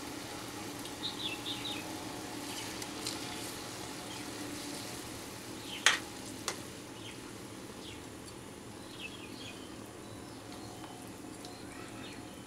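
Mustard gravy with pabda fish simmering in a kadai, a steady bubbling hiss. A metal spatula stirs and spoons the gravy over the fish, clicking sharply against the pan about six seconds in and once more lightly just after.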